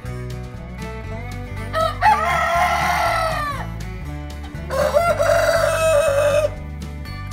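A rooster crowing twice, each crow almost two seconds long. The first comes about two seconds in and drops in pitch at its end; the second comes near five seconds in. Background country-style music plays underneath.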